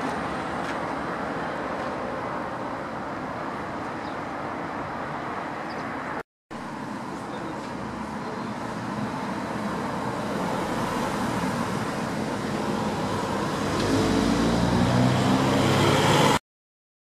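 Steady street and traffic noise, then a car approaches and passes close by. Its engine hum grows steadily louder over the last few seconds and cuts off abruptly.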